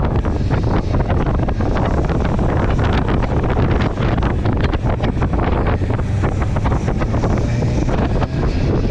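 Wind buffeting the microphone: a loud, steady low rumble broken by irregular crackling pops.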